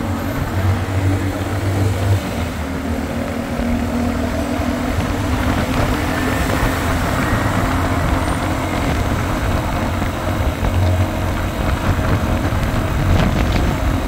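Steady drone of a car's engine and tyres on the road, heard from inside the moving car.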